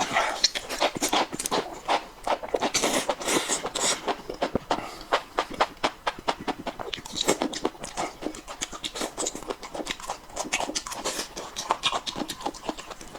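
A person chewing crunchy food close to the microphone: a dense, uneven run of crisp crackles and crunches.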